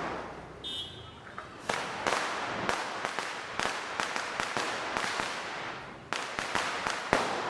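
Firecrackers going off in an irregular string of sharp bangs, several a second, each with a short echoing tail; a brief lull near the end is followed by a few more loud cracks.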